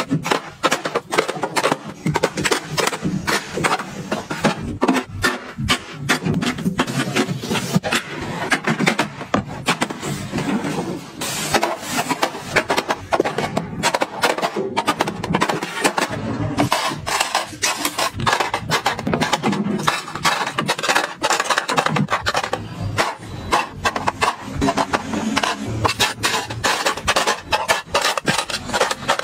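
Cosmetics and clear acrylic organizer boxes being handled and set into a plastic makeup trolley drawer: a steady run of small clicks, taps and clacks of plastic on plastic.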